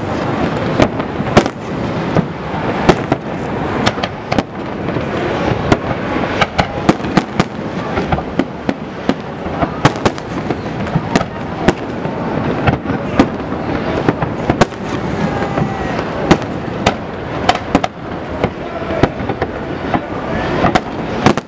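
Aerial fireworks display: a rapid, irregular barrage of sharp bangs and crackles, several a second, over a continuous din with no pause between bursts.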